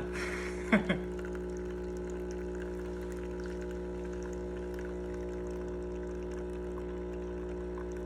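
Capsule coffee machine's pump humming steadily as coffee pours in a thin stream into a stainless steel mug. A short, louder sound comes about a second in.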